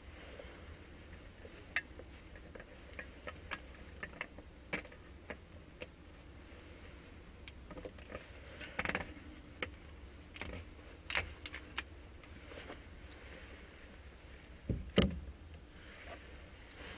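Scattered small clicks, knocks and rustles of a person shifting in a wooden hunting stand and handling a canteen, with a heavier thump about fifteen seconds in.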